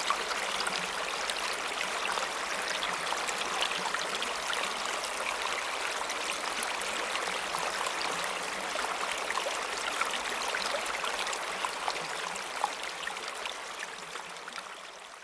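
Water flowing in a stream: a steady rush with many small splashes and drips. It fades out over the last few seconds.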